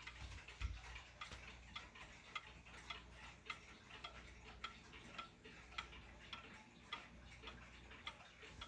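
Mechanical Jauch clock movement of a 1975 triple-chime box wall clock ticking steadily and faintly, a little under two ticks a second. There is a soft low thump just under a second in.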